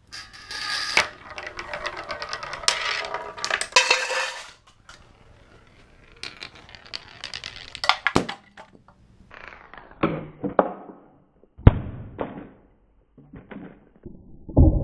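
A marble rolling and rattling down an aluminium channel rail for about four seconds, followed by a series of sharp knocks and clacks as marbles drop through pipes and strike the wooden levers of a homemade Rube Goldberg machine. A louder thud comes right at the end.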